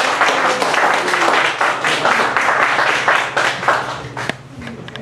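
Audience applauding: many hands clapping in a dense patter that thins out and fades about four seconds in.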